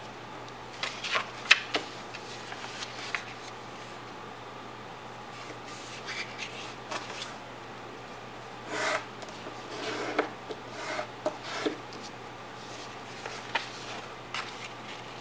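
A sheet of paper being folded and creased by hand: fingers rub and scrape along the folds in short, scattered strokes, busiest about a second in and again from about nine to eleven seconds.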